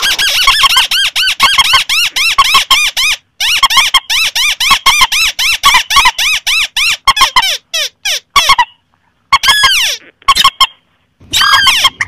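Recorded calls of rails and crakes (swamphen, crake and rail calls blended) played as a hunting lure. A rapid run of short, squeaky notes that rise and fall, about five a second, broken by a few brief pauses.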